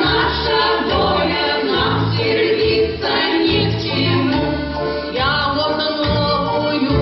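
A choir of voices singing a song with instrumental accompaniment and a steady beat.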